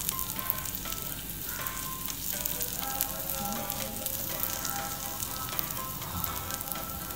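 Chopped onion, chilies and spices sizzling and crackling in a miniature kadai over a small open flame while a tiny metal slotted spatula stirs them.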